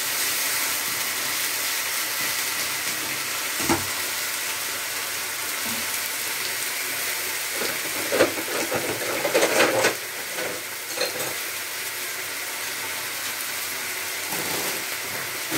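Pieces of lamb sizzling steadily in a non-stick frying pan over a gas flame. A wooden spatula knocks and scrapes against the pan now and then, busiest about halfway through.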